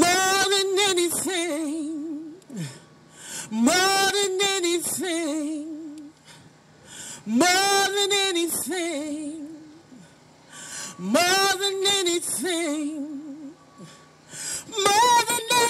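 A woman singing a slow gospel worship song in four long phrases, each ending on a held note with vibrato. A higher phrase begins near the end.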